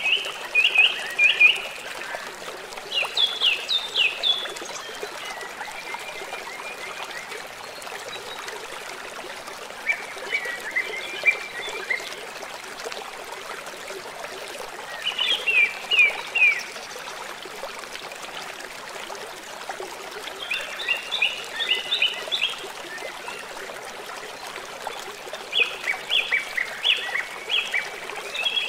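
A shallow rocky river rushing and splashing over boulders in a steady wash. Over it, a bird repeats a short phrase of quick, high chirping notes about every five seconds.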